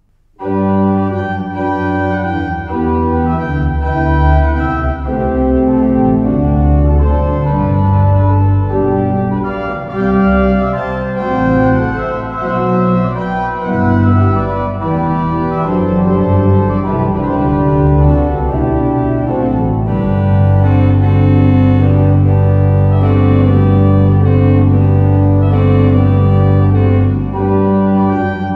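Church pipe organ playing, starting suddenly about half a second in with full held chords over a strong pedal bass. In the second half a long low pedal note is held for several seconds.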